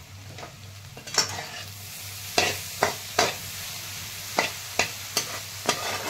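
Steel spatula stirring and scraping egg bhurji (spiced scrambled eggs) around a frying pan over a light sizzle. About eight sharp scrapes come at uneven intervals, starting about a second in.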